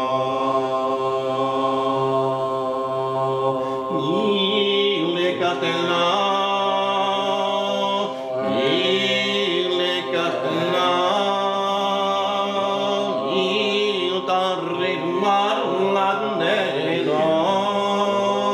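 A medieval bagpipe's drone held steady with the melodic chanter blocked, so only the drone sounds. From about four seconds in, a voice chants over it in the modal, drone-based style the musician likens to polyphony.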